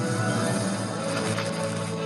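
Instrumental music with steady held notes and no speech.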